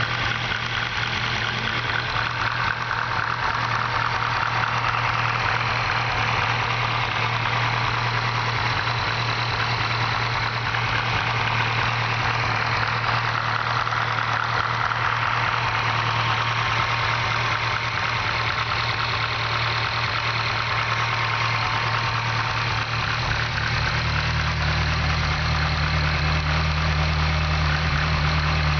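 Engine idling shortly after a cold start, a little on the noisy side, with a fast ticking clatter over the steady run: the lifter noise of a cold engine. Near the end the low note of the idle shifts.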